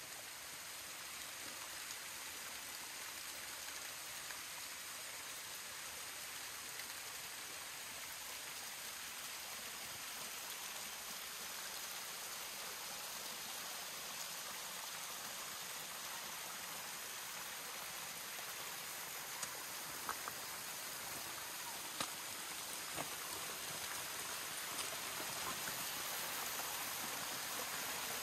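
Running water of a stream: a steady rushing hiss that grows slowly louder, with a few sharp clicks a little past two-thirds of the way in.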